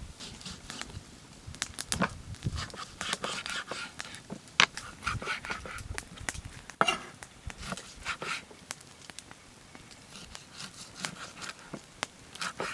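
Chef's knife cutting lamb ribs apart on a wooden cutting board: irregular knocks and clicks as the blade goes through the meat and bone and strikes the board.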